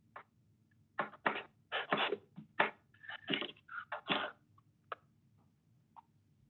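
A man's shaky, halting breaths and sniffles as he chokes up with emotion: a quick run of short, sharp breaths from about a second in to about four seconds in.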